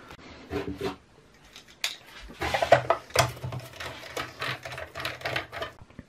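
Screws being driven back into the sheet-metal cover of a small air compressor: scattered clicks and small rattles, then about three seconds of steady mechanical buzzing that stops just before the end.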